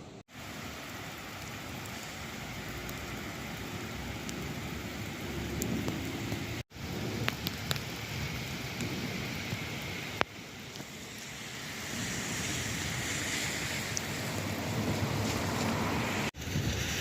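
Steady rain and wind during a thunderstorm, an even hiss that grows a little louder in the last few seconds. It cuts out briefly a few times.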